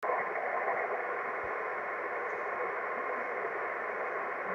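Realistic HTX-100 10-meter transceiver on SSB receive, its speaker giving a steady, even hiss of band noise on a channel with no station coming through.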